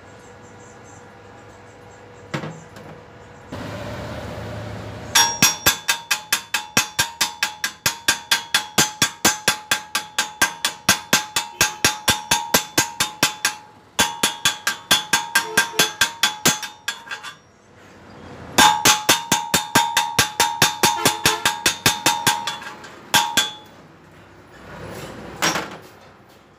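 Chipping hammer rapping a fresh stick weld on thin steel square tube to knock off the slag, about four strikes a second, each with a metallic ring from the tube. Two long runs of strikes with a short pause between them.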